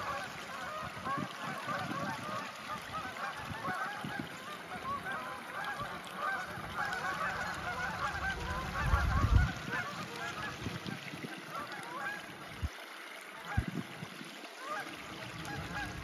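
A flock of birds calling continuously in many short, overlapping calls, with low bumps on the microphone, the loudest about nine seconds in.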